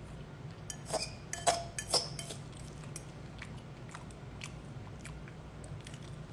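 A few sharp clinks and knocks of tableware while eating, like a fork against a plate, bunched about one to two seconds in. Fainter small clicks follow over a steady low room hum.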